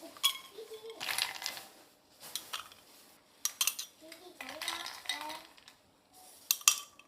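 Spoons clinking and scraping against bowls and dishes during a meal, in several short separate bouts of clatter.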